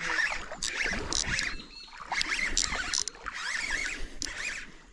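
Water splashing and knocking around a kayak while a hooked bass is played, with repeated high squeaky chirps and sharp clicks throughout.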